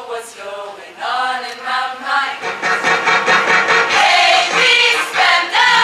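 A chorus of women's voices singing a musical-theatre number together, growing louder and fuller about halfway through.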